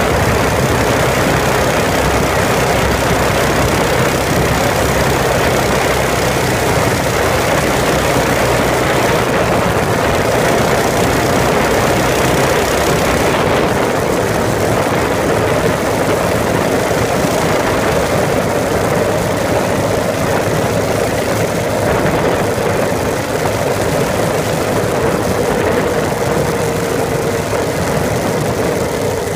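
A vehicle driving on a slushy, snow-covered road: steady engine and tyre noise, slightly duller in the high end from about halfway.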